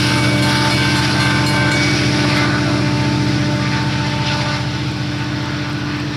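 Diesel locomotive engines of a departing Union Pacific stack train: a steady low drone with a thin whine above it, slowly fading as the train moves away.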